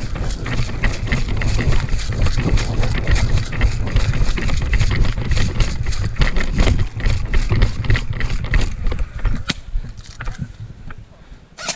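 A player running hard, with quick footsteps and gear rattling, while heavy wind rumble buffets a body-worn microphone. A sharp snap comes near the end.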